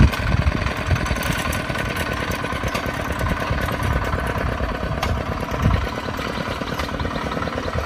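A small engine running steadily at an even pace.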